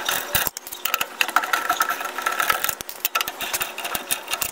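Lug wrench spinning lug nuts off a car's wheel studs: a fast, irregular metallic clicking and rattling.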